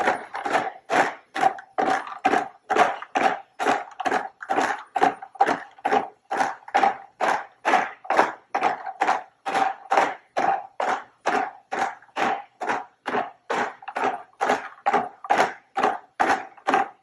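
Agility Robotics Digit bipedal robot stepping continuously, its harmonic-drive leg motors and feet making a short pulse with every step, about three a second, each carrying the same steady tone.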